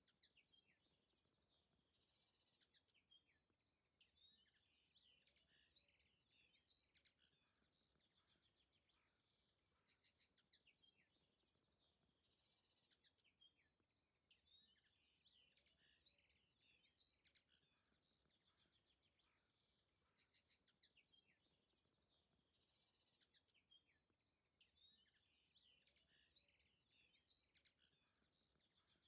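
Near silence with very faint songbird chirps and trills, high-pitched, coming in clusters that repeat about every ten seconds like a looped recording.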